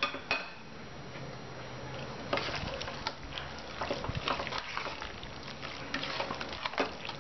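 A spatula stirring thick cooked beef curry in an open pressure cooker: irregular scrapes against the metal pot and wet squelching of the gravy, starting about two seconds in. A couple of sharp clacks come right at the start.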